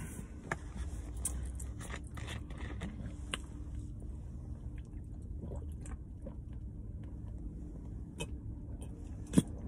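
Drinking lemon-lime soda from a plastic bottle: swallowing sounds, with small clicks and crinkles from the bottle and a sharper click near the end. A low steady hum runs underneath.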